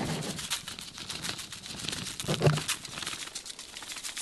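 Plastic zip-top bag and aluminum foil crinkling in quick, irregular crackles as seasoning is shaken out of the bag. A short, louder low sound comes about two and a half seconds in.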